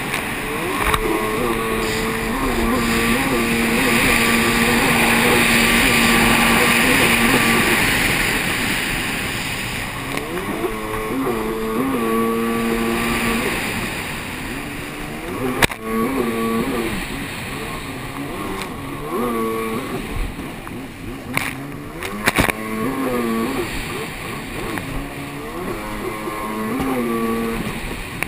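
Jet ski engine running hard, its pitch rising and falling again and again as the throttle is worked through the turns, over a steady rush of wind and spray. A few sharp knocks come through in the second half.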